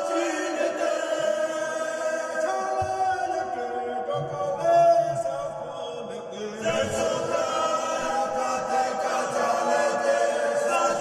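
Choral background music: voices chanting long, held notes, dipping briefly about six seconds in and then swelling again.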